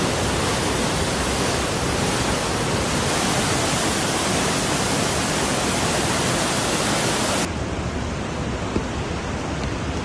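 Fast, muddy floodwater rushing through a street in a steady, dense rush of noise. About seven and a half seconds in it cuts to a slightly quieter, duller rush of water.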